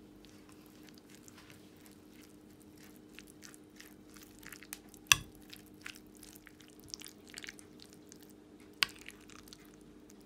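Metal spoon stirring scrambled egg, shredded carrot and mayonnaise together on a plate: soft squishing with scattered scrapes and light clicks, and a sharp knock of the spoon against the plate about five seconds in and again near the end.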